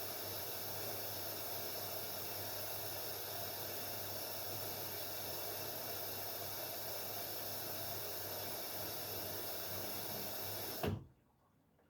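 Haier 7.5 kg washing machine taking in water: a steady hiss of water through the inlet valve with a low hum, which shuts off abruptly with a click near the end, leaving near silence.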